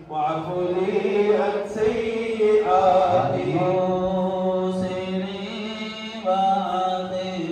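Men's voices chanting Sufi dhikr into microphones: a slow, melodic chant with long held notes, a new phrase starting about six seconds in.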